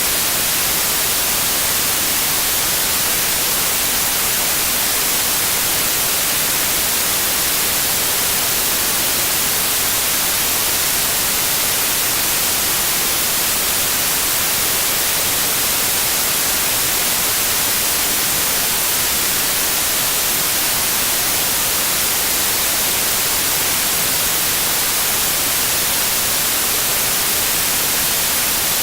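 Steady white noise: an even, unbroken hiss across the whole range, brightest in the treble.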